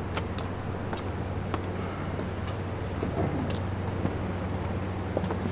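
Steady low mechanical hum, like a motor or engine running, with a few faint taps scattered through it.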